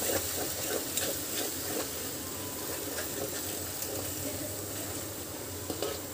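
Ground coconut-and-onion masala paste sizzling in hot oil in a metal pot as it is sautéed, with light scrapes from a metal spoon stirring it against the pot.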